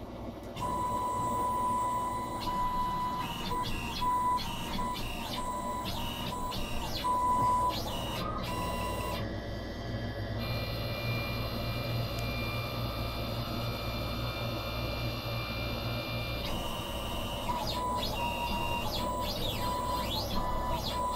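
CNC machine's stepper motors running a G-code program, whining at steady pitches that switch on and off with each move. From about 10 to 16 s a cluster of higher steady tones takes over. Near the end the tones rise and fall as the motors speed up and slow down.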